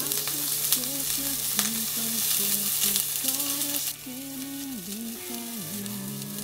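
Beef tenderloin searing in a little oil in a stainless steel frying pan, sizzling steadily. About four seconds in the sizzle drops sharply and carries on quieter.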